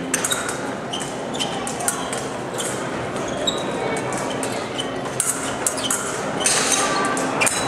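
Fencers' footwork on the piste: short, repeated shoe squeaks and sharp foot stamps and knocks, over a steady murmur of voices echoing in a large hall, which thickens briefly near the end.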